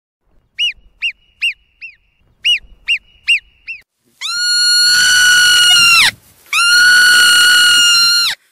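Marmot calling: a quick run of about eight short, sharp chirps, then two long, steady, high whistles of nearly two seconds each, separated by a brief gap. The long whistles are the loudest part.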